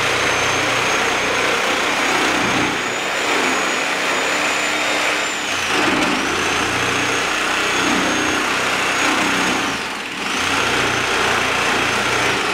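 Handheld electric power tool running continuously against the wooden handrail at the newel post, a steady high motor whine with grinding noise. Its pitch sags briefly twice, about five and ten seconds in, as the tool bogs under load.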